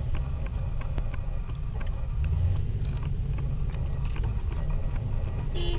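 Low, steady rumble of a car's engine and road noise heard inside the cabin while creeping in stop-and-go traffic, with scattered small clicks. A brief pitched beep sounds just before the end.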